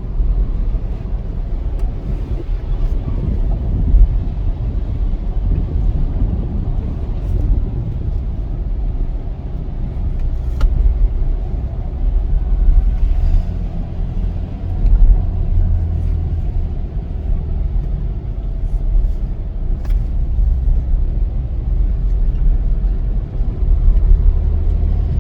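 Steady low road and engine rumble of a car driving, heard from inside the cabin, with a few faint ticks now and then.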